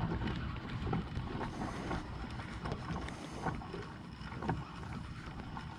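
Wind buffeting the microphone, with water lapping at a kayak's plastic hull and scattered light clicks.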